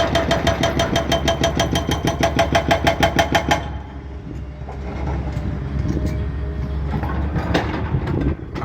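Excavator-mounted hydraulic breaker hammering rapidly at about nine blows a second, stopping about three and a half seconds in. The excavator's engine then runs on, with a few scattered knocks near the end.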